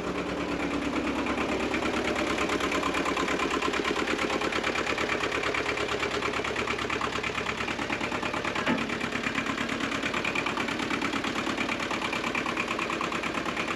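Shibaura SD1840 tractor's diesel engine idling steadily, with an even beat of firing pulses.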